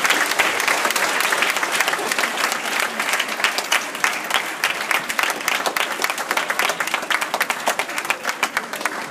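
A large audience of schoolchildren applauding, a dense run of many hands clapping that gradually dies down toward the end.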